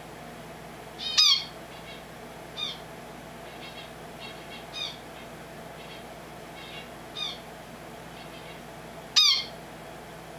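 Pet finch calling: short downward-sliding calls, two loud ones about a second in and near the end, with softer calls and faint chirps between.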